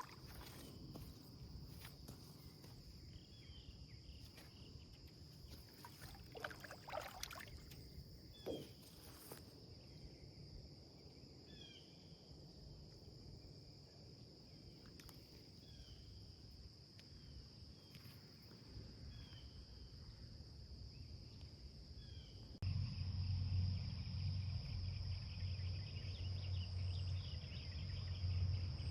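A steady, high insect chorus outdoors, with short chirps repeating about every second or so. About three-quarters of the way through there is a sudden cut to a louder, steady low hum under the insects.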